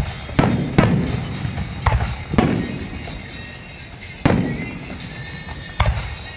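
Aerial fireworks shells bursting overhead: a string of about seven sharp bangs in six seconds, each trailing off in an echo. Music plays on a radio underneath.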